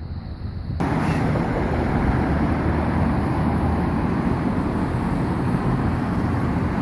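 Road traffic on a busy multi-lane avenue: cars and motorcycles passing in a steady din. It starts suddenly about a second in.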